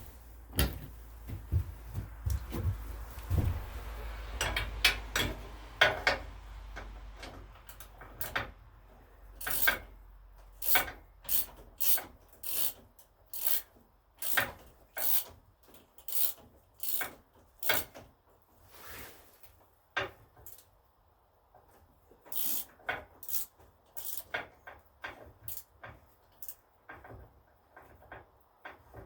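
A wrench working an engine mounting bolt on a garden tractor, heard as a run of short, sharp scraping clicks about one or two a second, after a few knocks and a low rumble in the first seconds.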